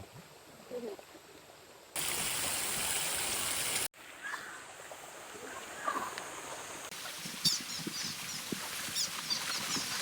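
Stream water running, heard in short cut-together clips: a loud, even rush of water for about two seconds, then quieter flowing water, with a run of high chirps near the end.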